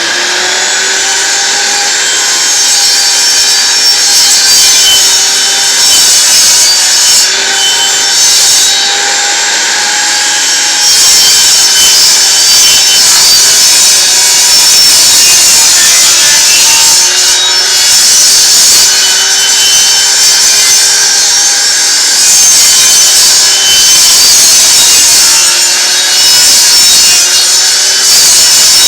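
Table saw running, its blade cutting into 5/8-inch plywood while the disc is turned against it in a circle. It is a loud, steady whine with a rasping cut, and it gets louder about a third of the way in.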